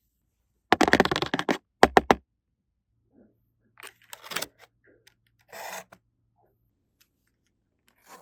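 Rustling and scraping from small toy kitchen pieces being handled, in a few short bursts. The loudest comes about a second in, with softer ones later.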